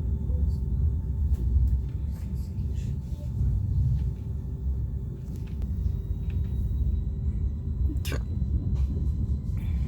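Low steady rumble inside an Italo high-speed train carriage, with a faint steady hum and a single sharp click about eight seconds in.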